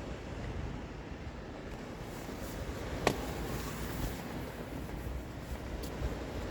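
Steady outdoor noise of wind buffeting the microphone, with one sharp click about three seconds in.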